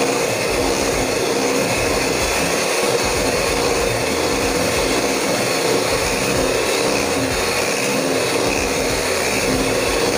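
Electric hand mixer running steadily at one speed, its beaters whipping thick cake batter in a stainless steel bowl.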